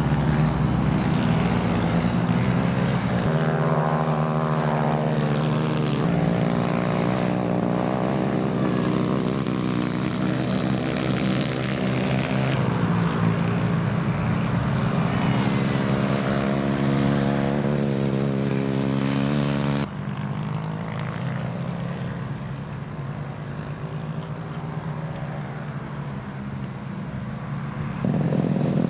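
Small kart engines running at high revs during a race, a steady buzzing engine note that wavers in pitch. The note changes abruptly several times and drops to a quieter stretch about two-thirds of the way through.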